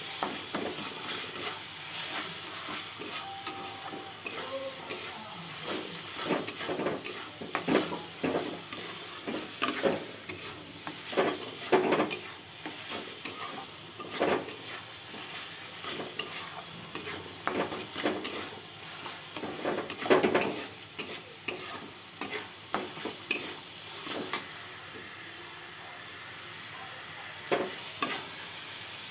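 Thick spice paste sizzling in oil in a metal kadai while a metal spatula stirs and scrapes it in irregular strokes. The masala is being fried down until the oil separates at the sides, the stage before water goes in.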